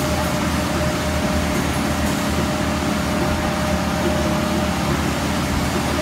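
Junjin JJRZ50 truck-mounted concrete boom pump running steadily, its engine drone and a steady whine continuing without a break while the boom is unfolded.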